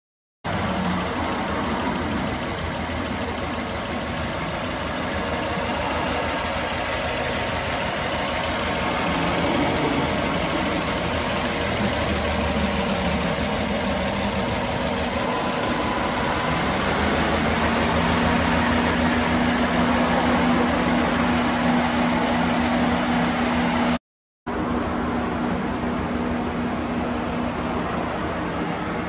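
Subaru Impreza WRX (GDA) turbocharged EJ205 flat-four, fitted with a Kakimoto muffler and an HKS air filter, idling steadily. About sixteen seconds in, a steady hum rises in and holds. The sound cuts out briefly twice.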